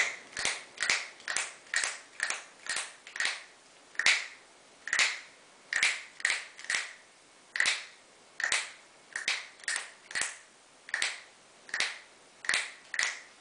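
A person imitating castanets: about two dozen sharp, dry clicks at roughly two a second, in uneven groups with short pauses between them.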